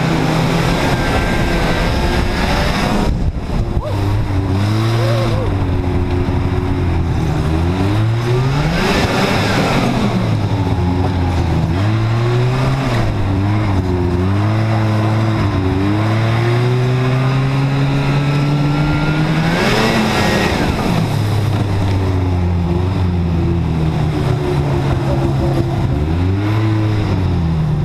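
Ski-Doo Everest 500 snowmobile's two-stroke engine running under way, its pitch rising and falling again and again as the throttle is opened and eased. A rushing noise swells twice, about a third of the way in and again about two-thirds in.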